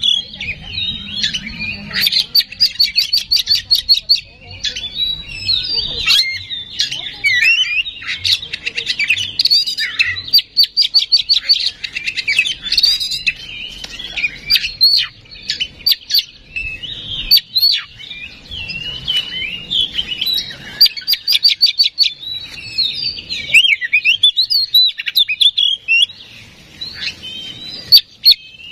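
Oriental magpie-robin (kacer) in full, continuous song. Loud, clear, varied whistles alternate with fast repeated chattering trills, with only brief pauses between phrases.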